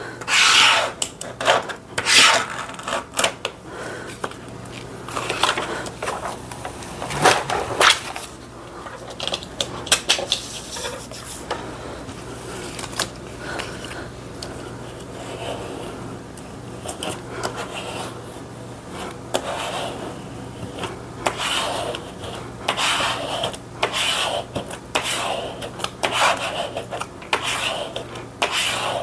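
A scraper and fingertips rubbing and scraping over clear laminate film on a sticker sheet, pressing trapped air bubbles out. The strokes come irregularly, in short runs, and are busiest near the start and in the last third.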